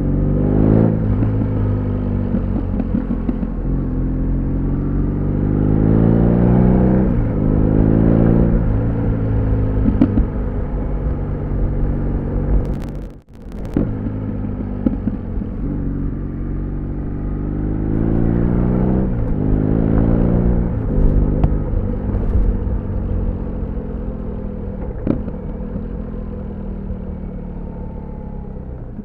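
BMW R1200 GS boxer-twin motorcycle engine and exhaust under way, revving up with rising pitch and dropping back several times as it goes through the gears. A few sharp pops come from the exhaust, the sound cuts out briefly about halfway, and the engine eases off near the end.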